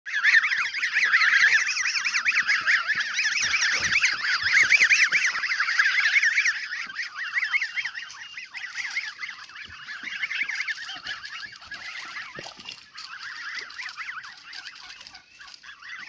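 A group of young geese calling together in rapid, high-pitched, wavering peeps, a dense chorus for the first six seconds or so that then thins out and quietens.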